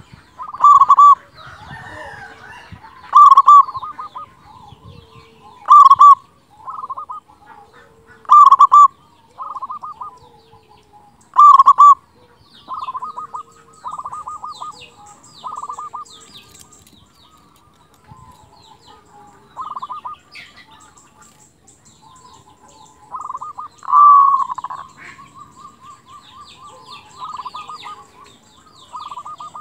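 Zebra dove (perkutut) cooing: loud staccato coo phrases, each a quick run of notes, repeated every two to three seconds, with longer runs in the second half. Small birds chirp faintly in the background.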